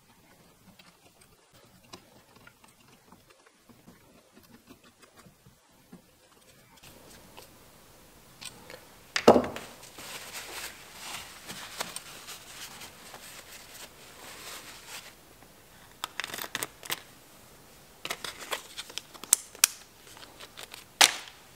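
Faint ticks at first, then a small clear plastic parts bag crinkling and rustling as it is handled, with scattered clicks and one sharp knock about nine seconds in.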